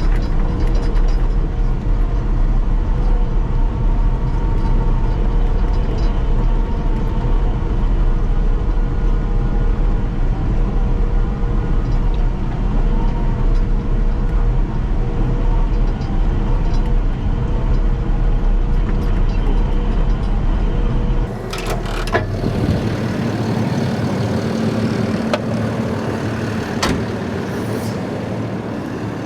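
Caterpillar D6K2 XL dozer's diesel engine running steadily with a heavy low rumble. About two-thirds of the way through, the rumble drops off suddenly with a few sharp clanks, and the machine runs on lighter.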